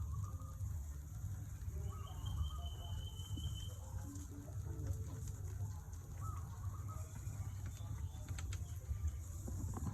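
A few short bird calls, one of them a longer thin high note, over a steady low rumble, with a few light clicks near the end.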